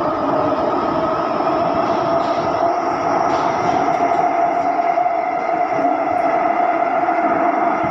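SMRT C151C metro train running through a tunnel, heard inside the car: the traction motors give a steady whine of several held tones, with echoey motors over a dense wheel-and-tunnel rumble.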